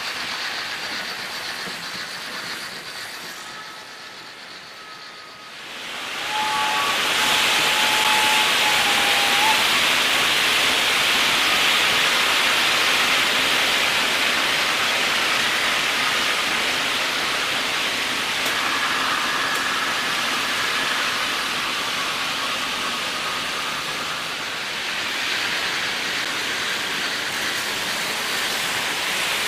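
Märklin H0 model train running past on the layout, its sound fading away over the first few seconds. About six seconds in, a louder steady hiss takes over and holds, with a few faint thin tones over it.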